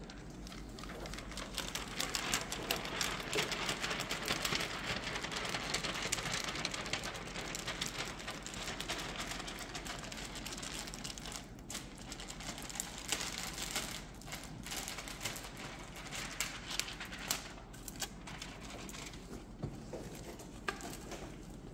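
Plastic window tint film crinkling and rustling as it is handled and reverse-rolled by hand, a dense run of fine crackles that is louder in the first half.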